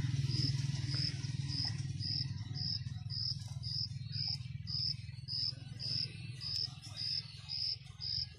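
A cricket chirping steadily, about two high chirps a second. A low rumble lies under it, strongest in the first few seconds and then dying away.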